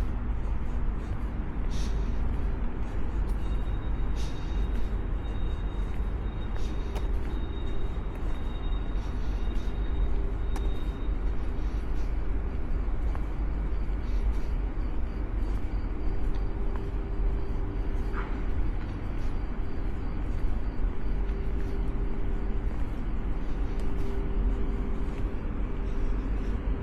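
Steady low rumble of outdoor background noise, with a faint steady hum and a thin high whine for several seconds in the first half.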